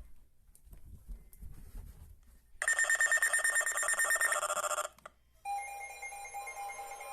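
Weather alert radio sounding its alarm: a loud, rapidly pulsing electronic beep for about two seconds. After a short pause, a steady electronic alert tone starts.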